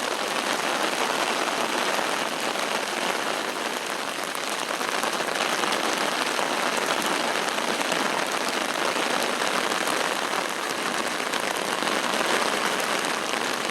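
Steady moderate rain falling, with the drops hitting an umbrella held over the microphone.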